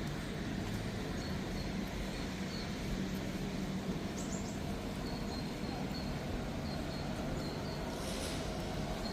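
Steady city street noise with a low traffic hum, and faint short bird chirps repeating through the middle.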